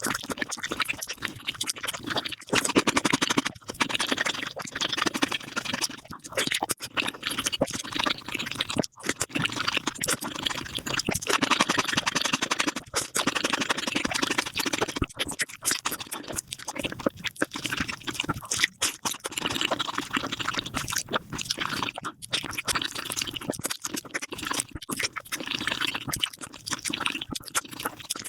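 Close-miked mukbang eating sounds of spicy beef feet played at five times speed: rapid, dense wet chewing and smacking that runs together, broken by a few brief gaps where clips are cut.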